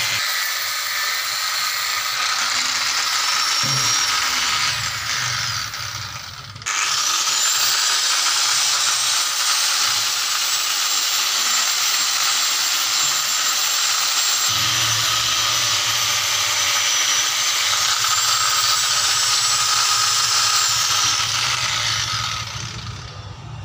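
Angle grinder with a sanding disc on a backing pad, running with a steady high whine as it sands a steel blade cut from an old hand saw. The sound breaks off abruptly about a quarter of the way in and comes back, and the motor winds down near the end.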